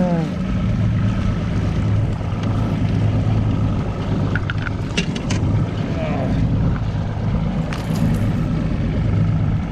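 A boat's outboard motor running steadily at low trolling speed, a constant low hum, with a few sharp clicks and knocks about halfway through and again near the end.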